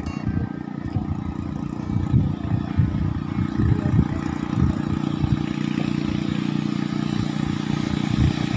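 A small engine running steadily at a constant pitch, with irregular low thumps over it.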